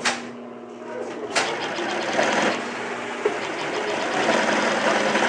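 Durkopp Adler 204-370 extra-heavy triple-feed industrial sewing machine stitching through thick webbing. There is a sharp click at the start and a brief lull, then steady sewing from a little over a second in, with a steady hum underneath.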